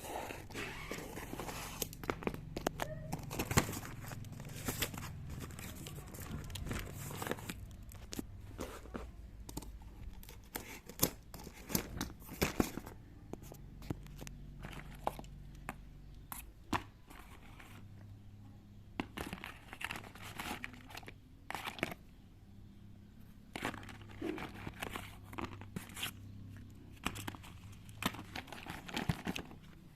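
Irregular crinkling, tearing and rustling handling noises with sharp clicks scattered throughout, over a low steady hum.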